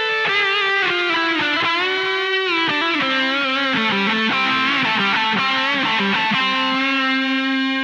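Les Paul electric guitar through a Boss DS-2 Turbo Distortion pedal, playing a distorted single-note lead with bent and wavering notes that ends on a long held note.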